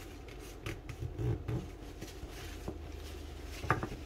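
Faint rubbing and a few light taps of a cloth wiping the rim of a ceramic plate, with a sharper tick near the end.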